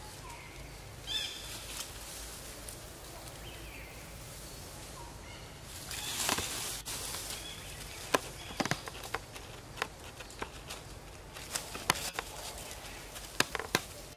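Dry leaf litter rustling and crackling under footsteps, with a swell of rustling through foliage about six seconds in and a scatter of sharp snaps and crackles through the second half. Brief high chirps sound about a second in.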